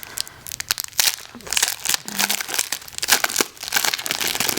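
Plastic packaging crinkling and rustling in irregular crackles as it is handled and opened by hand.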